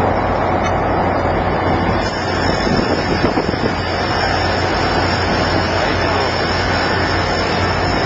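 Wind blowing hard on the microphone over a steady low machinery hum.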